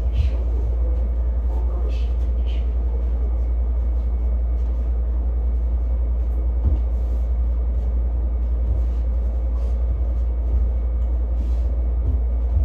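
Steady low rumble, with faint scattered clicks and taps over it.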